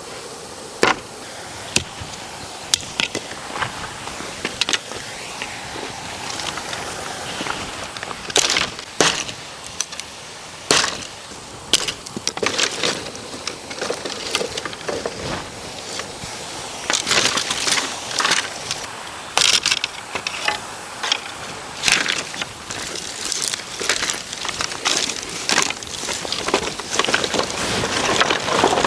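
Irregular sharp knocks and snaps of dry wood being broken and handled, coming thicker in the second half, over a steady hiss of running stream water.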